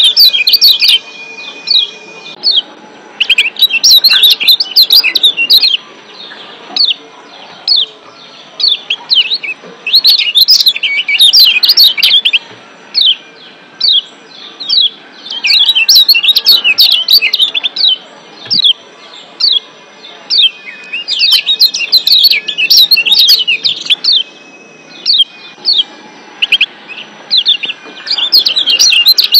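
Lombok yellow white-eye (kecial kuning, a Zosterops) giving 'ciak' calls: rapid runs of sharp, high chirps, each run a second or two long with short pauses between, repeating over and over.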